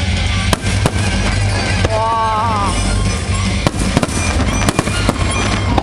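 Fireworks going off in quick succession: repeated sharp bangs and crackles over a steady low rumble.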